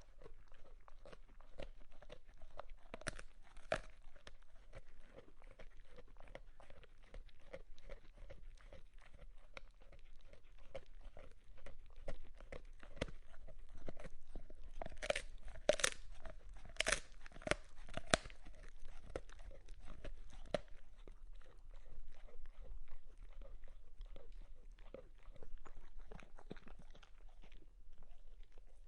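Dog chewing: irregular wet chomping and crunching bites in quick succession, with a run of louder, sharper crunches about halfway through.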